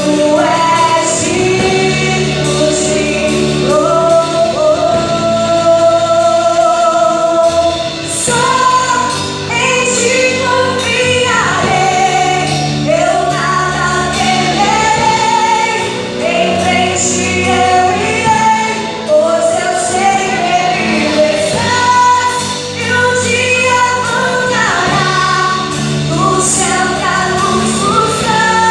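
Gospel worship song: a female lead voice singing, with other voices joining, over a live band of keyboard, guitars, bass guitar and drums.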